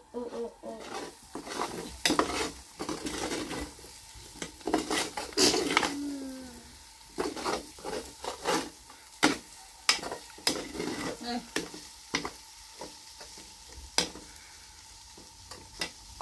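Cooking: a utensil stirring, scraping and knocking in a pan in irregular clinks while food sizzles.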